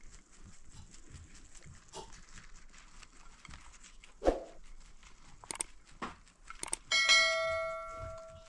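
Scattered knocks and clatter with one louder thud, then a struck metal object ringing out and dying away over about a second and a half near the end.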